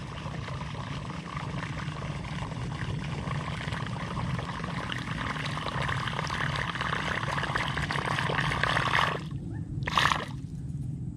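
A steady trickling water noise that cuts off about nine seconds in. About a second later comes a short splash as a fish, a snakehead (toman), strikes at the lure on the surface near the boat.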